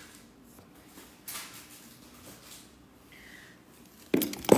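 Mostly quiet, with a short hiss about a second in. Near the end comes a sudden clatter of small hard makeup cases and tools being picked up and knocking together.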